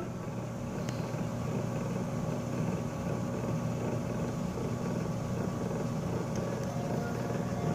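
A steady low mechanical hum with a dense rumble underneath.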